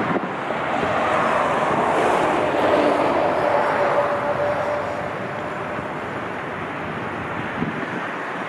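Jet airliner passing, its engine noise swelling and fading over a few seconds with a faint whine that drops slightly in pitch, and wind buffeting the microphone.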